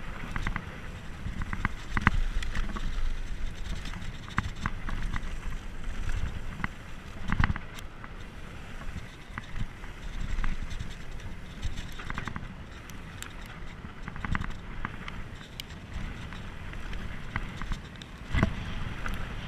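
Mountain bike riding fast down a dirt trail: wind rumble on the microphone and tyre noise over the dirt, with frequent rattling clicks from the bike and heavier knocks over bumps about two seconds in, around seven seconds in and near the end.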